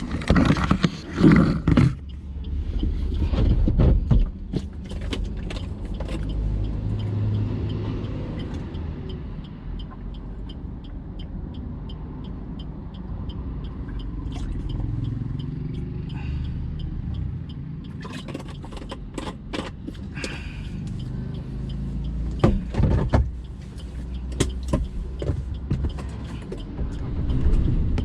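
Inside a Maruti Suzuki Ciaz's cabin, the car's engine runs with a steady low hum. Short clicks and knocks from handling things inside the car come a few times.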